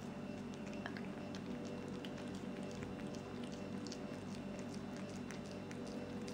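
Cat chewing and licking a boiled potato: faint, small wet clicks scattered over a steady low hum.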